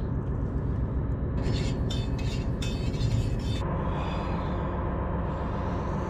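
Steady low mechanical hum of ships lying at anchor on the river, with about two seconds of scuffing, handling noise starting a second and a half in and a faint steady tone joining it a little later.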